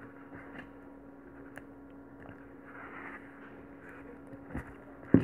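Faint rustling and small clicks of hand beadwork, a needle and nylon thread being worked through pearl beads, with one sharp click near the end, over a steady low hum.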